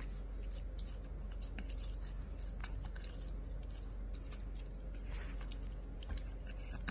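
A small dog, a Pomeranian, chewing and biting a wedge of watermelon: a run of short, soft wet clicks and crunches over a steady low hum.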